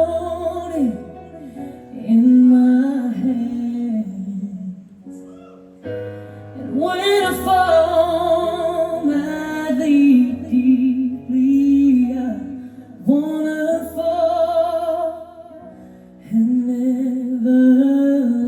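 Female pop vocalist singing a ballad live with band accompaniment: phrases with vibrato on the held notes over steady bass notes, with short breaks between lines.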